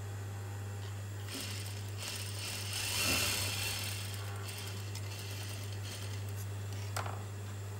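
Juki industrial sewing machine running briefly, a short rattling burst of stitching about three seconds in, over a steady low hum. A single sharp click near the end.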